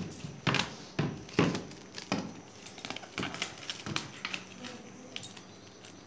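Plastic cling film crinkling as it is stretched over a plate and pressed down by hand: sharp crackles about every half second at first, then softer and sparser.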